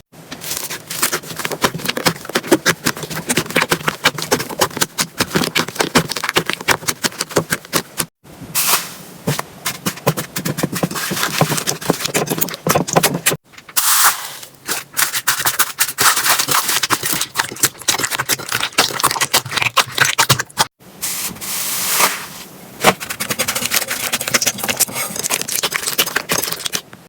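Slime being squeezed and worked, a dense crackle of rapid clicks and pops; the sound breaks off abruptly three times.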